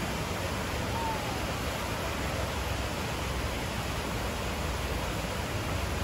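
Waterfall rushing: a steady, unbroken noise of falling water with a strong low rumble.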